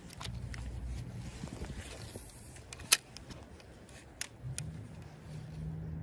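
Spinning reel handled while fishing: a sharp snap about three seconds in and another a little over a second later, with fainter ticks, over a steady low hum.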